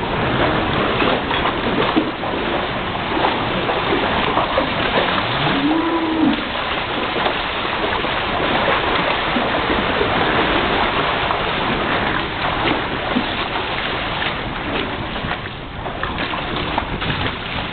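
Steady rushing noise of floodwater, with a cow mooing once about six seconds in.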